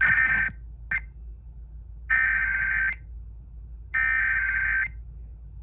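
Emergency Alert System SAME header: raspy digital data bursts in two close high tones, announcing a flash flood warning. The two longer bursts come about a second apart, after a shorter burst and a brief blip at the start.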